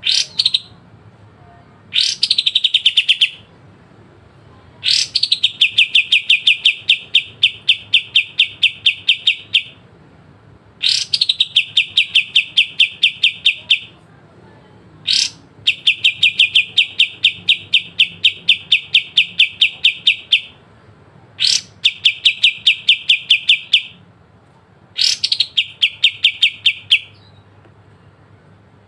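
A kapas tembak songbird sings a series of sharp, fast, rattling trills ('besetan'). Each phrase opens with one high sweeping note and runs into a rapid, even trill lasting a second to several seconds. The phrase repeats about eight times with short pauses between.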